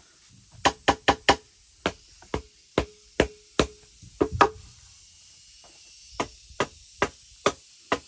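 Machete striking a green bamboo pole: about sixteen sharp blows in quick runs, several with a short hollow ring.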